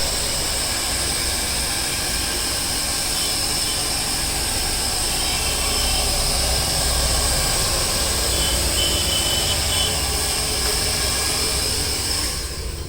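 Handheld hair dryer blowing steadily, a rushing airflow with a high whine over it, switched off near the end.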